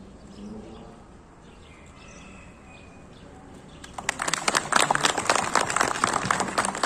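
A group of people applauding, breaking out suddenly about four seconds in, dense and irregular. Before it there is a quiet stretch with a few faint high chirps.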